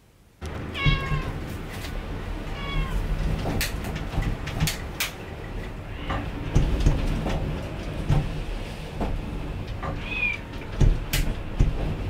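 A cat meowing twice in the first three seconds, with a short, higher call near the end, over a steady low rumble full of knocks and rattles.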